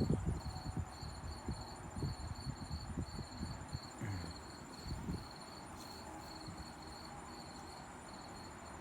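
Insects chirping steadily: a high chirp repeating about twice a second over a thin, steady higher trill, typical of crickets. Soft, irregular rustling and bumps from handling leaves sound over it in the first five seconds, then stop.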